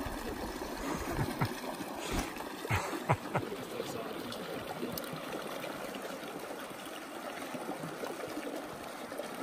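Shallow mountain creek rushing over rocks: a steady flow of water, with a few short knocks in the first few seconds.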